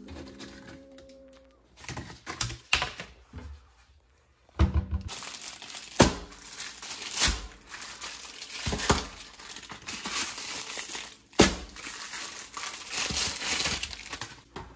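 Plastic burrito packaging being crinkled and torn open in bursts, with several sharp knocks in among the rustling.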